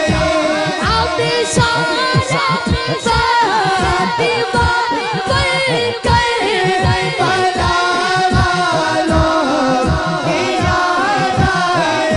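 A boy singing a naat, an Urdu devotional song, into a microphone: one continuous, ornamented melodic line with wavering pitch. Short low beats run under the voice throughout.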